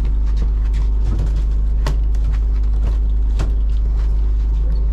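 Fishing boat's engine running steadily with a deep hum, with a few sharp knocks, the loudest about two and three and a half seconds in.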